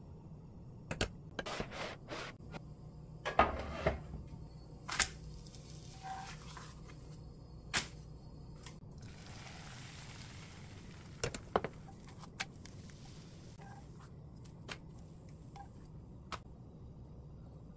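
Kitchen food-preparation handling sounds: scattered sharp taps and knocks of utensils and containers, the loudest about three and a half and five seconds in, with a soft scraping rustle a little past the middle, over a low steady hum.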